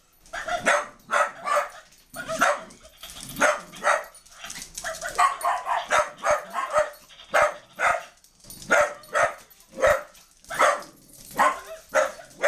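A dog barking over and over in short, sharp barks, about two a second, without a break.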